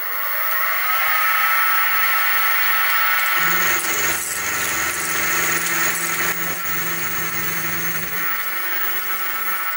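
Sieg SX2P mini-mill's spindle motor rising in pitch up to speed, then running steadily as the end mill takes a facing cut on a metal block. A lower hum joins about three seconds in and stops near the end.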